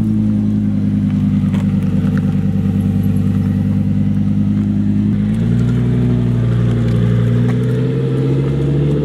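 Lamborghini Huracán's V10 engine running as the car rolls by at low speed: a steady low drone that steps up in pitch about five seconds in and keeps climbing slowly as the car pulls away.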